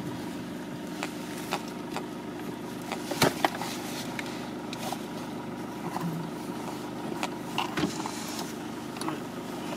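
Toyota Hilux idling, heard from inside the cab, with scattered clicks and knocks from a passenger fumbling at the inside of the front passenger door. The loudest is a pair of knocks about three seconds in, with more near the end.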